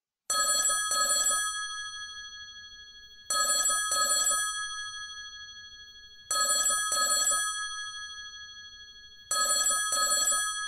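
Telephone ringing in a double-ring pattern: four pairs of bell-like rings, about three seconds apart, each fading slowly, a call going unanswered.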